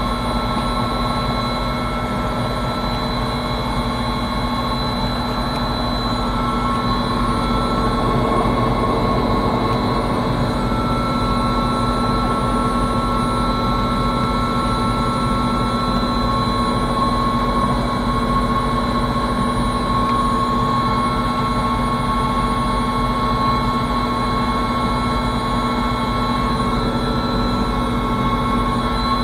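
Helicopter engine and rotor running steadily, heard from inside the cabin as a steady whine over the low rotor noise.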